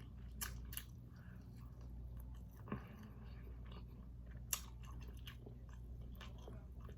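Close-miked mouth sounds of a person biting and chewing seafood boil in sauce, with a few sharp crunches and clicks scattered through, the sharpest about four and a half seconds in.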